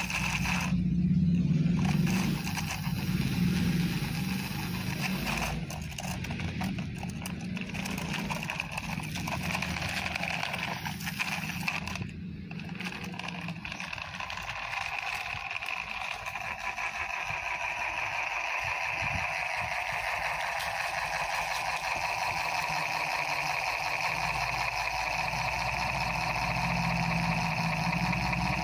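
Small battery-powered DC motor of a toy truck running steadily, a whirring whine through its plastic gears.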